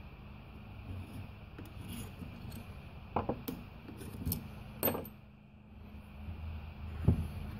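Small metal clicks and taps as the end cap and loosened through-bolts of a lawn tractor's starter motor are handled and worked loose by hand, several scattered knocks, the loudest near the end.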